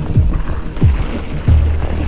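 Background music with a heavy bass beat: deep drum hits that drop in pitch, about every two-thirds of a second, over sustained bass notes.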